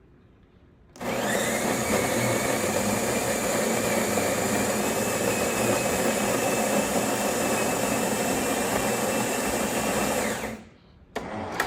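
Jura Impressa C9 super-automatic espresso machine's built-in grinder grinding coffee beans: a steady motor whir with a high whine. It starts about a second in and cuts off near the end.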